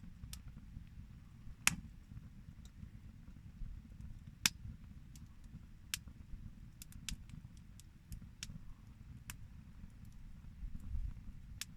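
Wood fire burning in a small solo BBQ grill, crackling with scattered sharp pops at irregular intervals over a low, steady rumble.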